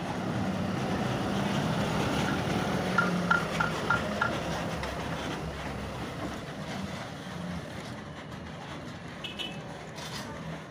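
Light box truck's diesel engine running as it pulls past and drives away, its steady hum fading over the second half. A quick run of five short high beeps sounds about three seconds in.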